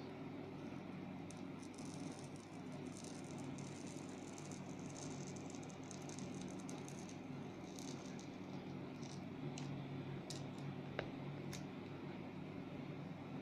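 Faint scraping, rustling and light clicks of a thin plastic pry card being worked along the edge of a MacBook Air display to lift the screen panel from its housing, over a steady low hum, with one sharper tick about eleven seconds in.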